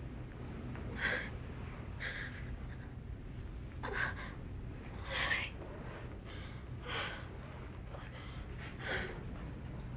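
A woman in childbirth gasping and panting, a string of short, sharp breaths about once a second, over a steady low hum.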